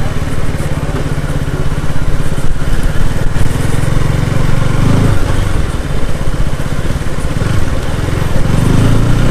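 KTM RC 200 motorcycle's single-cylinder engine running as the bike is ridden, its note swelling briefly about halfway through and again near the end.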